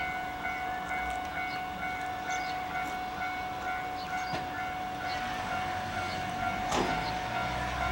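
A level-crossing warning bell ringing in a steady repeating pattern, about two strokes a second. Under it is the low rumble of KiHa 181-series diesel railcar engines, which grows louder near the end. A brief sweeping sound comes about seven seconds in.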